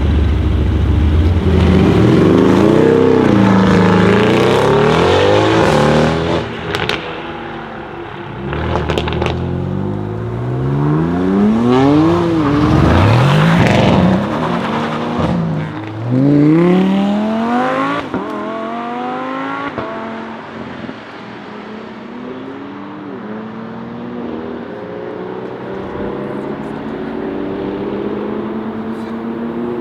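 Mercedes-AMG GT R's twin-turbo V8 through a loud aftermarket exhaust, revving and accelerating hard, its pitch climbing and dropping again several times, with a few sharp cracks. For the last third it settles to a quieter, steadier engine tone that slowly climbs in pitch.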